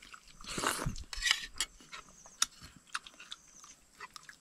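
Eating utensils clinking and scraping against dishes during a meal: two short scrapes in the first second and a half, then scattered light clicks.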